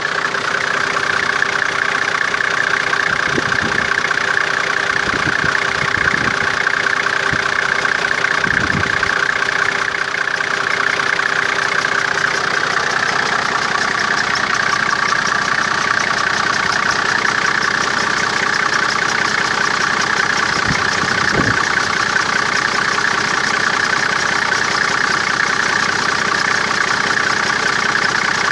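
Toyota 1HZ 4.2-litre inline-six diesel, fitted with an aftermarket turbocharger, idling steadily.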